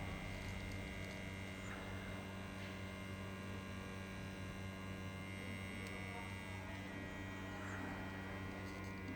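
Steady electrical mains hum made of even low tones, with a few faint light scrapes.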